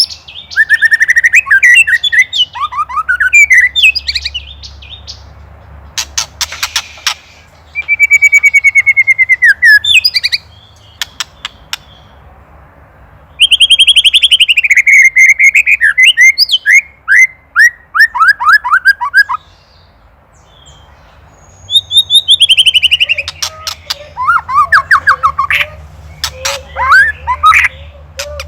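White-rumped shama (murai batu) singing loud phrases of falling whistled slurs, fast runs of repeated notes and bursts of rattling chatter (ketrekan), with a couple of short pauses between phrases. A faint steady low hum runs underneath.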